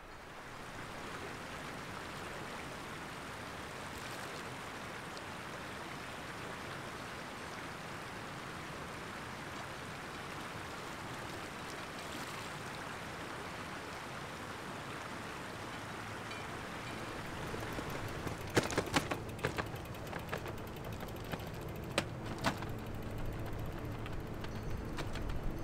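Steady rushing of a shallow mountain stream. In the last several seconds a few sharp, irregular clicks and knocks come in over it, with a low hum.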